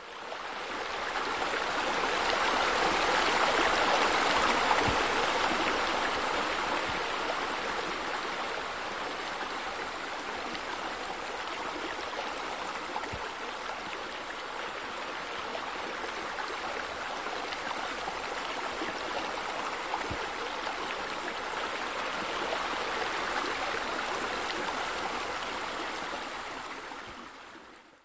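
Steady rush of splashing, falling water, a pool water-feature sound effect, fading in at the start and fading out near the end.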